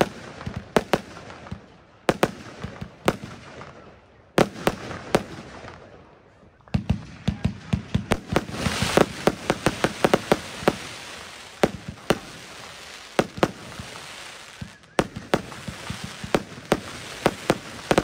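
Consumer firework battery (cake) firing a rapid, irregular series of shots with sharp bangs as the shells burst. After two short lulls the shots come thicker, over a dense crackling hiss from the bursting stars.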